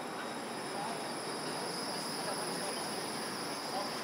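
Low-floor electric tram rolling in along street track: a steady rushing noise with a thin, steady high-pitched whine over it.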